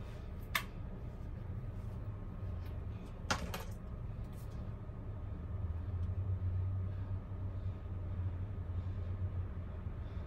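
A steady low hum, a little stronger in the second half, broken by two sharp clicks, the first about half a second in and the second about three seconds later.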